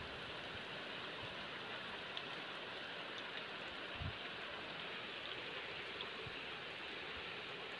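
Heavy rain falling steadily onto a flooded mud yard and its standing water, a constant hiss of drops. A brief low thump about four seconds in.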